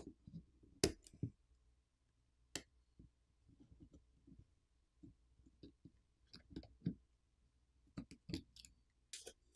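Quiet clicks and ticks of a plastic pry pick working the iPhone 15 Pro's battery and flex-cable connectors loose from the logic board: a sharp click a little under a second in, another about two and a half seconds in, faint ticks between, and a quick run of clicks near the end.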